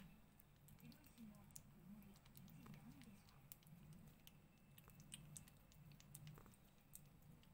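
Faint, irregular wet clicks of a kitten's tongue and mouth as it licks paste from a Churu squeeze-tube cat treat.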